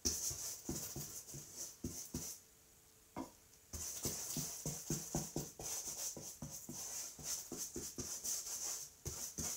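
Paintbrush scrubbing wet paint back and forth across a painting panel in quick, irregular strokes, several a second, with a short pause about a third of the way in.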